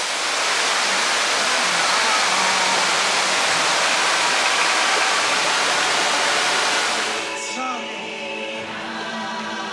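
A steady, loud rushing noise, which gives way about seven seconds in to music with choir-like singing.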